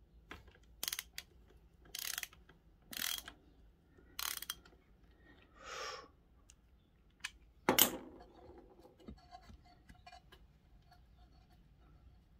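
Socket ratchet clicking in four short strokes about a second apart as it undoes the magnetic sump plug on a pit bike engine, followed by a louder single clack about eight seconds in.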